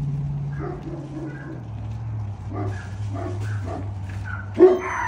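Dog barking and yipping in a quick series of short calls, the loudest one near the end.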